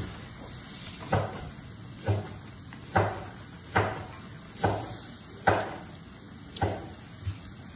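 Wooden chopsticks stirring pieces of chicken in a large aluminium wok, with about eight dull knocks, roughly one a second, as the stirring jolts the wok and strikes its side.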